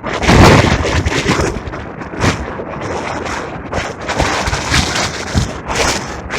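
Strong wind gusting against the microphone, loud and irregular, with the strongest gust about half a second in.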